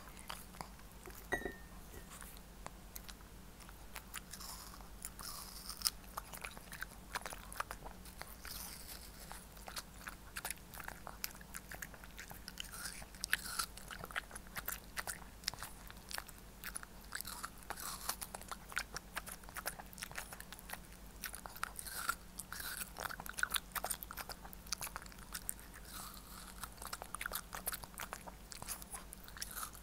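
Shih Tzu biting and chewing watermelon held out by hand: a quick, irregular run of moist crunches and mouth clicks.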